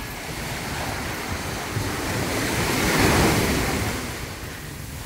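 Small waves breaking and washing up a sandy beach, one swelling to a peak about three seconds in and then fading. Wind rumbles on the microphone underneath.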